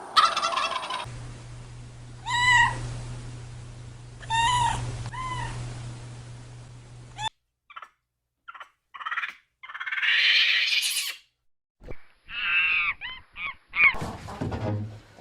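Poultry calling: a few separate loud pitched calls about two seconds apart, then, after an abrupt cut about halfway, a quick run of short calls.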